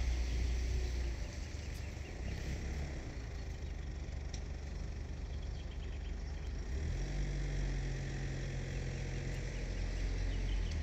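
Wind buffeting the microphone: a low, uneven rumble, with a faint steady hum joining in for a couple of seconds past the middle.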